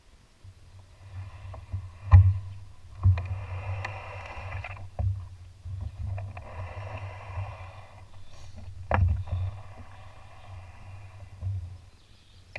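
Canoe paddling: the paddle swishes through the water in long strokes, with a few sharp knocks of the paddle against the canoe's hull. A steady low rumble underneath.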